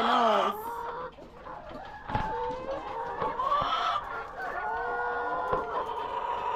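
A flock of chickens clucking and calling over one another, with roosters crowing: a steady din that is too much noise.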